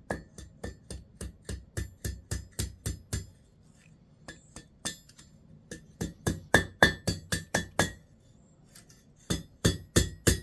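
Hand hammer striking steel bar stock over an anvil's horn to bend it, each blow a sharp metallic ring. The blows come in quick runs of about four a second, with two short pauses between runs.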